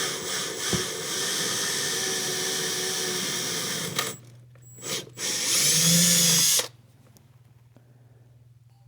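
Power drill running a twist bit into the golf cart's dash panel, boring a row of round holes for a cutout. It runs steadily for about four seconds, stops, gives a short burst, then runs again louder with a whine for about a second before cutting off suddenly.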